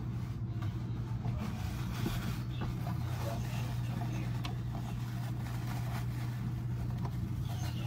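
A steady low hum, with faint scattered clicks and light rustling over it.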